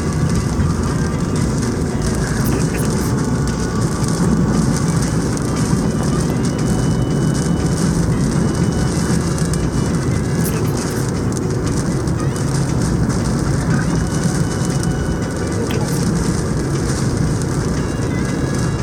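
Typhoon wind and rain: a steady, heavy rush of noise, strongest in the low end.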